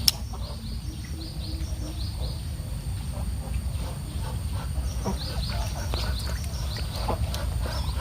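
A bird calling in two runs of short, high, downward-sliding chirps, several a second, over a steady low rumble. There is a single sharp click right at the start.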